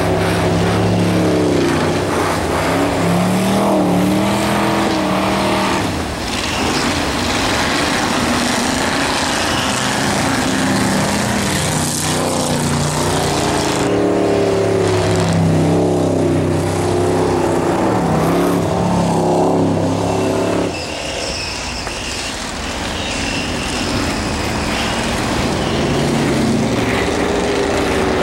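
Rear-wheel-drive race cars' engines revving hard on an ice track, their pitch rising and falling over and over as the drivers accelerate and lift off through the turns. The sound drops for a few seconds a little after two-thirds of the way through as the cars pull away, then builds again.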